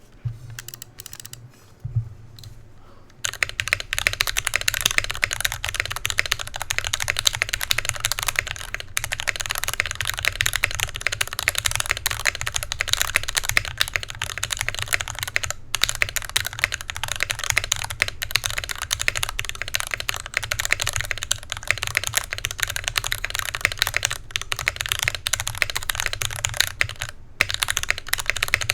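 Typing on an NK65 aluminum mechanical keyboard with Gateron Black Box Ink linear switches, an aluminum plate and PBT keycaps. It starts as a few scattered keystrokes, then about three seconds in turns to steady, rapid typing.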